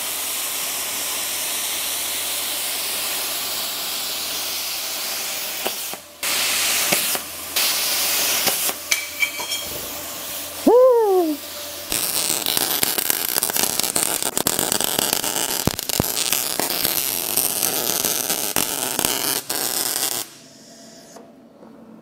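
Plasma cutter cutting steel: a steady hiss of air and arc in several runs with short breaks, then a crackly hiss with many small ticks that stops near the end. A brief falling whistle sounds about halfway through.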